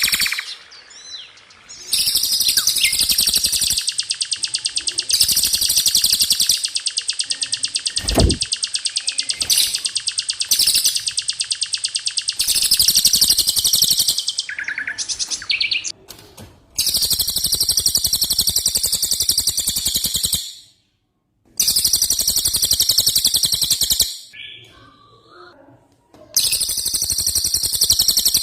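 Songbird masteran recording: very rapid, high rolling trills (the 'rol tembak' song used to train caged songbirds), running for several seconds at a time and broken by short pauses.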